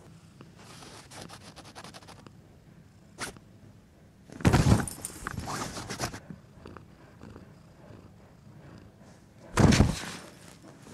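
Rustling of a fabric cat play tunnel and scraping as a cat plays in it, with two loud bumps about four and a half and nine and a half seconds in.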